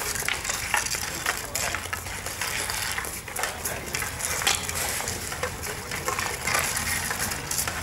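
Several hockey sticks clicking and scraping on asphalt as players stickhandle small balls, a steady stream of irregular sharp taps from stick blades hitting the balls and the ground.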